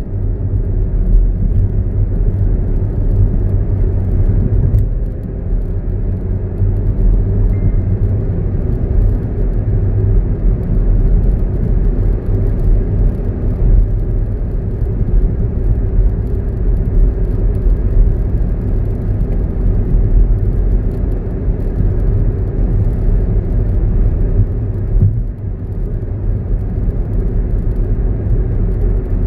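Steady low rumble of a car driving along an open road at speed: engine and tyre noise.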